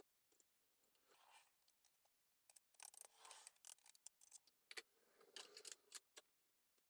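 Near silence, with faint scattered clicks and light scraping in the second half.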